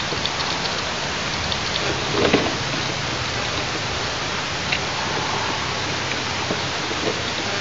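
Steady rushing hiss of wind across the nest-top microphone, with a few faint crackles and rustles, the loudest about two seconds in.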